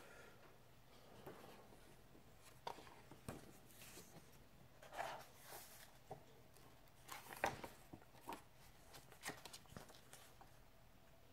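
Faint rustles and flicks of pages being turned in a thick hardcover comic book: several separate page turns, the loudest about two-thirds of the way in.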